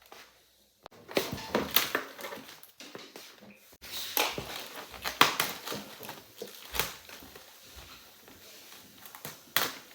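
Irregular knocks and clicks of plastic parts being handled, as caps are pushed onto the legs of an IKEA Mammut plastic chair.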